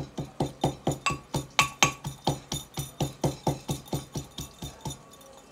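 Metal pestle pounding green chillies and garlic in a metal mortar, about four strikes a second, some with a short metallic ring, pausing briefly near the end.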